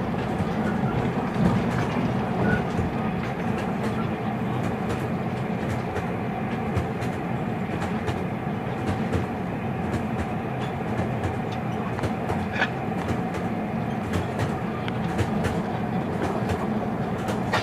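Steady rumble of a moving train heard from inside a passenger carriage, with faint scattered clicks.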